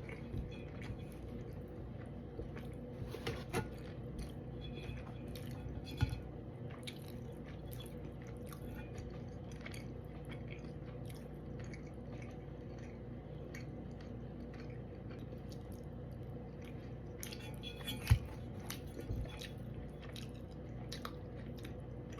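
Close-miked chewing and wet, squishy mouth sounds of a person eating fried and grilled fish, with scattered small clicks and taps, the sharpest about 18 seconds in.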